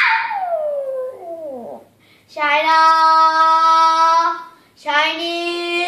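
A Maltese dog howling along with a young girl's singing: a howl sliding down in pitch over the first two seconds, then two long held sung notes.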